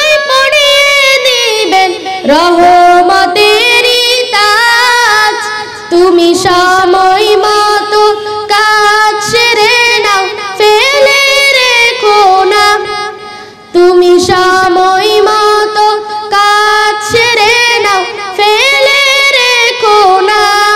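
A boy singing a Bangla Islamic gazal solo with no instruments, in long, ornamented notes that waver in pitch, pausing briefly between phrases.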